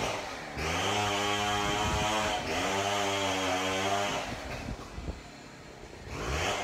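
Stihl chainsaw running at high revs while cutting, in two long pulls with a short dip between them. About four seconds in it eases off to a lower, quieter run, then revs up again near the end.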